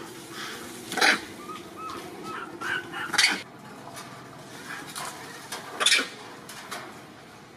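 Sharp metallic clatters, three of them a couple of seconds apart, from chain-link fencing and a roof frame rattling as macaques climb on it. A few faint, short, high squeaks fall between the first two clatters.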